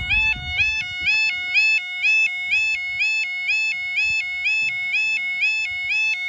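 Level crossing warning alarm sounding: an electronic two-tone yodel that steps up in pitch, repeating about twice a second.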